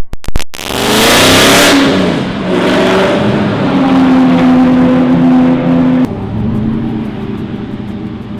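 Racing car engine accelerating hard close by, its pitch rising and then holding a steady note, after a few sharp clicks at the start. About six seconds in the sound cuts abruptly to a quieter, more distant engine drone.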